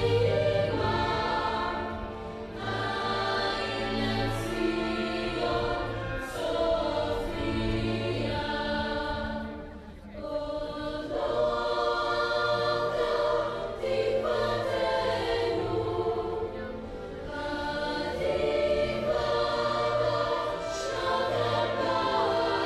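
A choir singing in long, held phrases, with short pauses between them.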